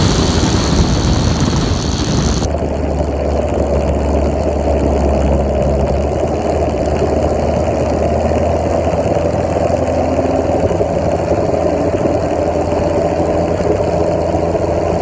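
Small two-stroke moped engine running steadily on the road with a constant mid-pitched drone. A higher whine is laid over it for the first two seconds or so, then drops away.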